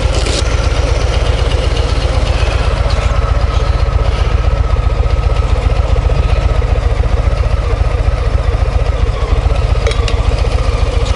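Harley-Davidson Low Rider ST's Milwaukee-Eight 117 V-twin idling steadily at a standstill, with an even, low, pulsing beat.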